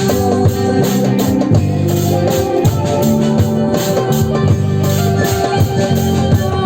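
Live psytrance jam: a steady beat with fast even percussion, about four strokes a second, under sustained organ-like synth chords and a changing bass line.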